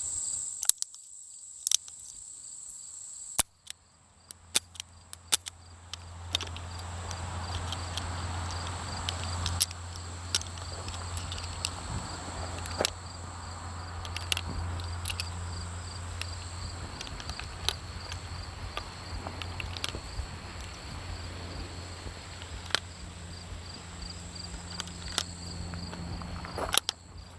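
Insects chirring steadily in two high, even bands, with scattered sharp clicks and knocks.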